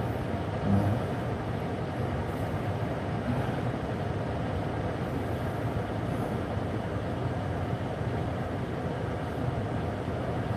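Steady low hum inside a car's cabin as the car sits idling at a standstill.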